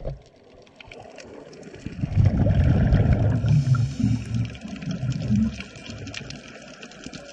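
Underwater sound of scuba exhalation: bubbles from a diver's regulator rumbling in bursts from about two seconds in, easing near the end. Scattered crackling clicks run through it.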